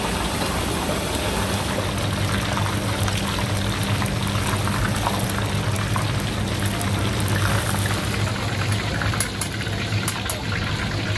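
Steady hum and hiss of a hawker stall's cooking equipment, with liquid boiling; a few light clicks about nine to ten seconds in.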